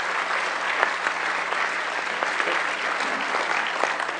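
Audience applauding, the clapping holding at a steady level.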